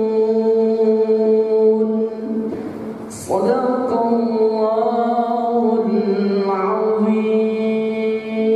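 A man's voice chanting Quran recitation in long, drawn-out melodic notes, with a short break for breath about two and a half seconds in.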